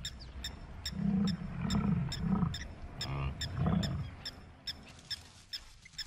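Several short, low animal calls of a lion or buffalo, the first about a second in and the last near four seconds, over a regular high ticking about two or three times a second.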